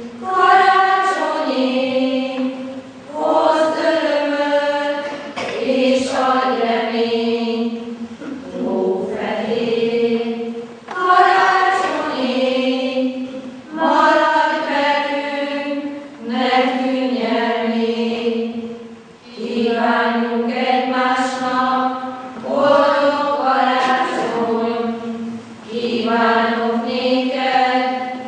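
A women's and girls' choir singing in unison and harmony, in phrases of a few seconds each with short breaths between them.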